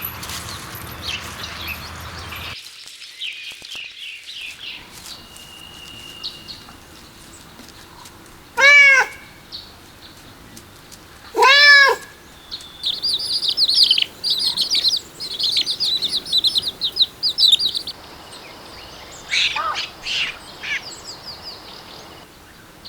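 A cat meowing twice, about three seconds apart, each meow rising then falling in pitch. Small birds chirp rapidly in the second half.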